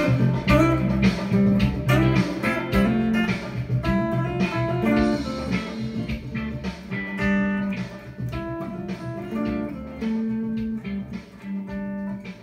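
Amplified hollow-body archtop electric guitar playing a mid-tempo gospel tune, mixing chords and single-note melody. The playing grows softer in the second half.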